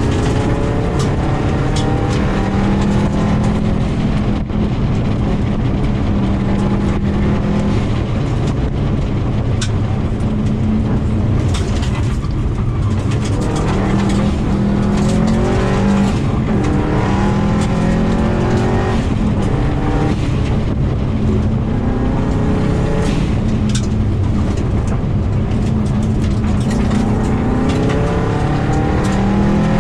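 Inside the cabin of a 2000 Subaru WRX rally car: its turbocharged flat-four engine at racing pace, revs climbing again and again through the gears and dropping at each shift. Frequent sharp clicks of gravel hit the car on a gravel stage.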